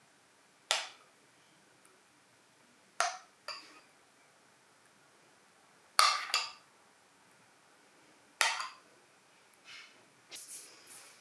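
Metal spoon clinking against the rim of a glass clip-top jar while scooping thick cashew cream: about six sharp clinks, some in quick pairs, every two to three seconds, with softer scraping near the end.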